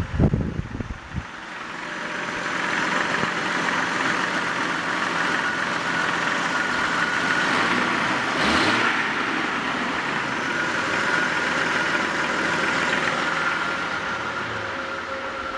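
Jeep Grand Cherokee engine idling steadily, with a few low thumps in the first second and a brief swell a little past the middle. The owner reports a rough idle.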